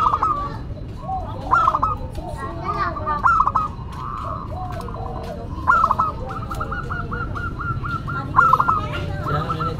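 Zebra dove (perkutut) cooing: short phrases of quick, rippling coo notes repeated several times, and from about six seconds in a longer run of evenly spaced notes, about five a second.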